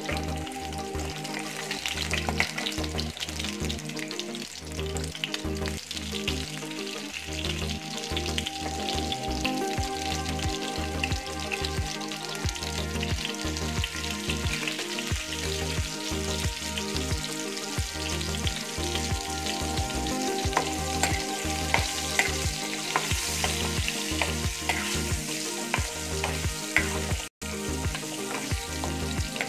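Whole potatoes sizzling as they fry in hot oil in a kadai, with a steady frying hiss. A metal spoon clicks and scrapes against the pan now and then as the potatoes are turned.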